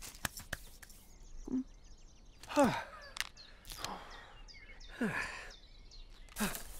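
Stick Man, an animated character, gives four short breathy sighs, each falling in pitch, as he catches his breath after being freed from the dog's fetch game.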